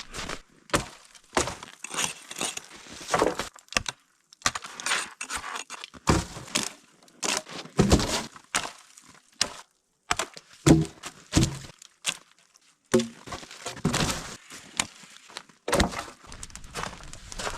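Irregular series of sharp cracks and thunks of wood being broken and chopped, some strokes heavier than others.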